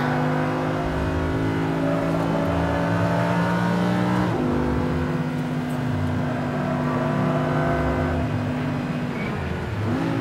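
Lamborghini Huracán's naturally aspirated 5.2-litre V10 pulling hard, heard from inside the cabin. Its pitch climbs, drops suddenly about four seconds in at an upshift, and climbs again. Near the end it falls away as the driver lifts off, with a quick rev blip of a downshift at the very end.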